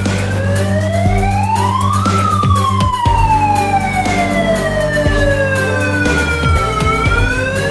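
Electronic wailing siren sounding the evacuation alarm for an earthquake drill. Its pitch rises over about two seconds, falls slowly over about five, and starts rising again near the end.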